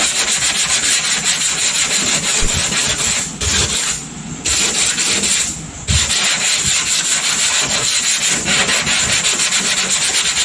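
Hand sanding block rubbing back and forth over primer on a car body panel, with two short pauses about three and a half and five and a half seconds in. The block sanding shows up the low spots in the dent repair that still need work.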